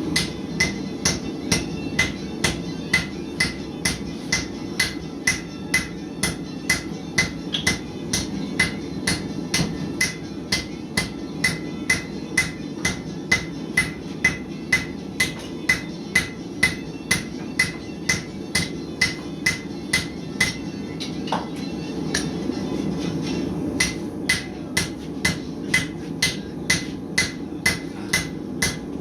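Blacksmith's hammer striking steel on an anvil in a steady rhythm, about two blows a second, each with a short ringing note. The blows stop for about two seconds roughly three-quarters of the way through, then resume, over a steady low rush.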